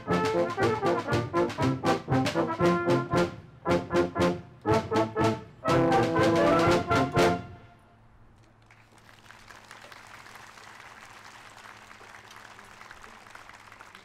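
Brass band playing the closing bars of a tune, ending on a held chord that cuts off about seven and a half seconds in, followed by light audience applause.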